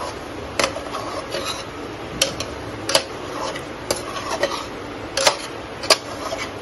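A slotted spoon stirring thick potato curry in a pressure cooker pot, clacking sharply against the pot's side about six times at uneven intervals, over a soft steady hiss.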